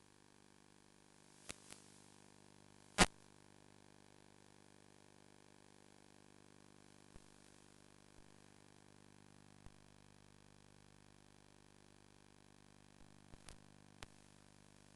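Steady low static hiss with a constant electrical hum, broken by scattered sharp clicks and pops, the loudest a single pop about three seconds in and a small cluster near the end.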